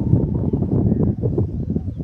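Wind buffeting a handheld camera's microphone: a loud, uneven, gusty rumble.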